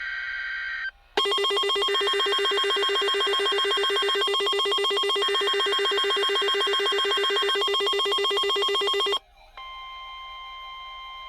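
The end of a NOAA Weather Radio SAME digital header burst, a steady warbling data tone, stops about a second in. A weather radio receiver's alert then sounds a loud ringing trill for about eight seconds, with two more header bursts faintly beneath it. After a brief gap, the steady single-pitch 1050 Hz warning alarm tone begins.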